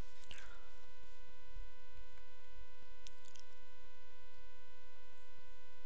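Steady electrical hum with a thin high tone over it, and a few faint clicks about three seconds in.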